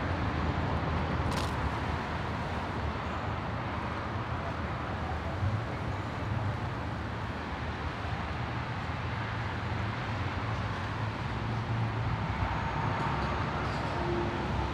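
Car driving slowly: a steady low rumble of engine and road noise, with one brief click about a second and a half in.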